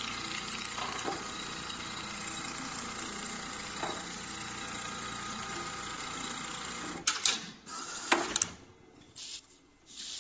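Pattern sewing machine stitching steadily through a shoe upper clamped in a template, stopping about seven seconds in. A few sharp clicks and knocks follow.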